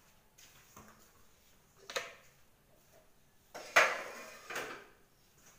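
Metal kitchenware clattering on a counter: a short knock about two seconds in, then the loudest clatter a little before four seconds in, with another shortly after.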